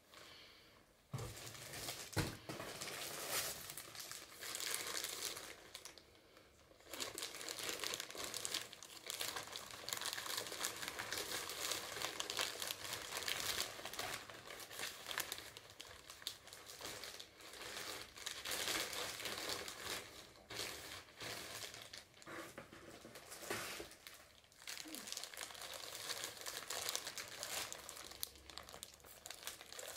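Plastic packaging bags crinkling and rustling close to the microphone as latex garments are unwrapped and handled, with a couple of low knocks about a second in.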